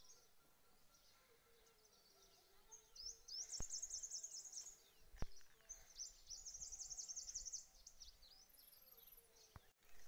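A small songbird singing two fast high trills of rapidly repeated notes, each lasting about two seconds, a second or so apart, with a thin very high call near the end. The song is faint.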